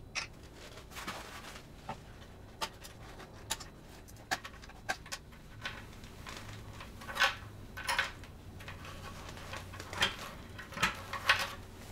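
Irregular clicks, taps and short scrapes as the crossover and binding-post plate is worked loose and pulled out of the back of a wooden speaker cabinet, with about a dozen knocks spread unevenly through the handling.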